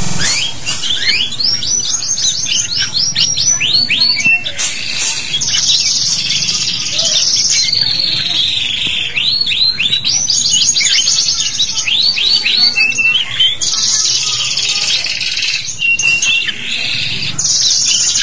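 Domestic canary in full song: runs of quick rising chirps, about four or five a second, alternating with dense buzzing rolls.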